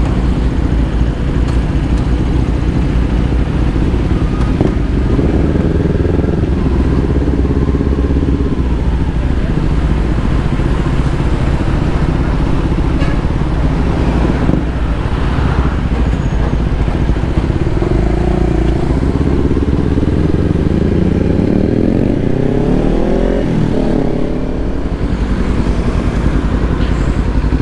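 Kawasaki Ninja 400's parallel-twin engine running as the motorcycle rides through slow traffic, heard from the bike itself. Its pitch climbs a few times as it speeds up about three quarters of the way through.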